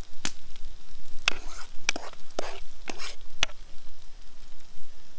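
Metal spoon scraping and clinking against a small metal camping pot while scooping macaroni and cheese out of it, about six sharp scrapes and knocks in the first three and a half seconds over a faint steady hiss.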